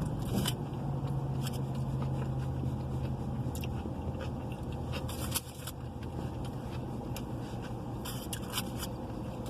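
Close-up eating sounds: biting and chewing a burrito, with scattered crinkles and scrapes of its wrapper. Under them a steady low hum inside the car, which drops away a few seconds in.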